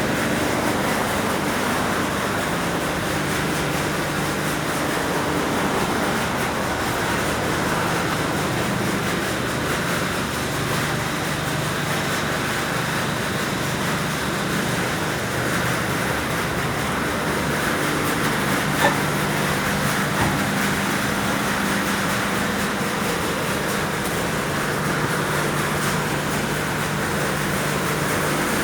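An engine running steadily: a constant machine drone with a low steady hum, and one short click about two-thirds of the way through.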